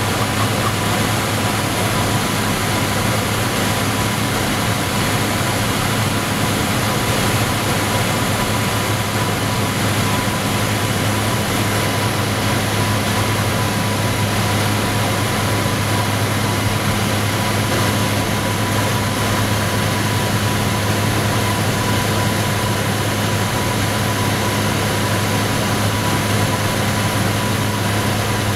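Pilatus PC-6 Porter's engine and propeller running steadily in flight, heard inside the cabin: a constant low hum with a thin steady high tone over airflow hiss.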